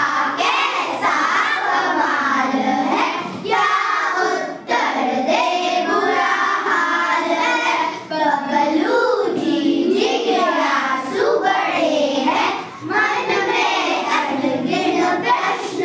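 Young schoolchildren's voices reciting a Hindi poem in a sing-song chant, several at once, line by line with short pauses between phrases.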